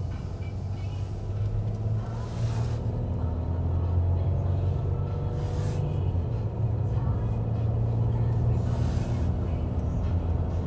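Car driving at road speed, heard from inside the cabin: a steady low engine and tyre rumble, with three brief swells of hiss about two and a half, five and a half and nine seconds in.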